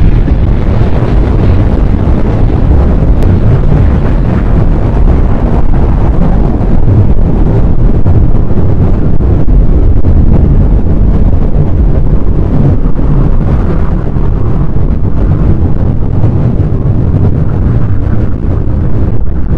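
A loud, steady rumbling roar, like heavy wind or a distant engine, laid over the pictures as a soundtrack. It starts suddenly just before and holds without a break.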